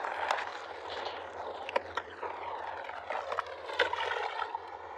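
A mesh fish trap being emptied of live fish into a plastic tub: a few sharp slaps and clicks from the fish and the net, over a steady rushing noise.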